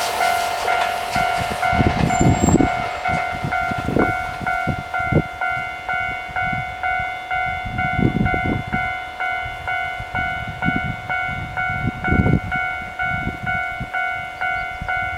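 Japanese level-crossing warning bell ringing, a rapid, even electronic ding repeating two to three times a second, as the noise of a passing Keihan electric train dies away in the first moments. Low rumbles come and go under the bell.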